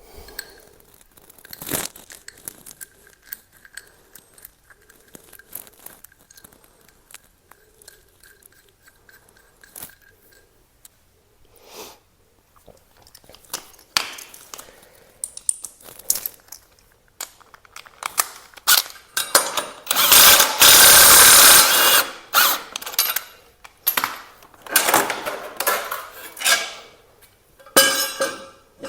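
Motorcycle fairing bolts being worked out: scattered clicks and knocks of tools and fasteners, then in the second half a power tool run in several short bursts, the longest and loudest lasting about two seconds.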